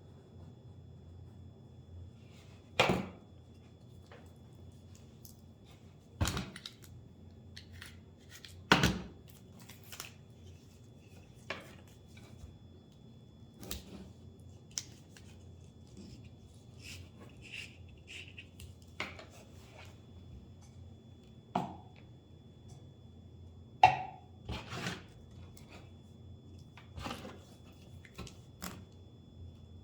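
Hands and tools working on a firework shell on a bench: scattered small clicks and rustles with about five sharper knocks as parts and tools are handled and set down.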